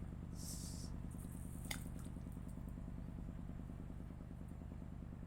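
An engine running steadily, an even low rumble. A brief hiss comes about half a second in, and a single sharp click just under two seconds in.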